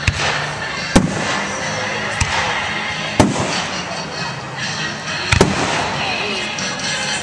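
Fireworks display: aerial shells bursting in sharp bangs about once a second, with a close double bang about five seconds in.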